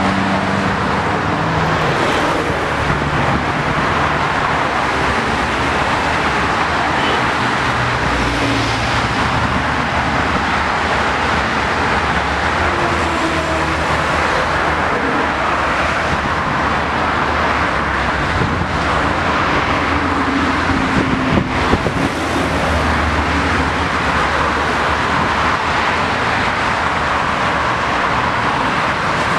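Steady roar of fast multi-lane highway traffic: tyre noise and engine hum of passing cars and trucks, with a few sharper, louder moments about two-thirds of the way through.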